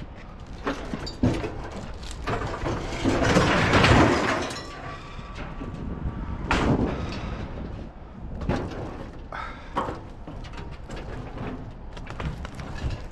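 Scrap being handled and unloaded by hand: irregular clanks and knocks, with a longer scraping drag about three seconds in and a shorter one a few seconds later.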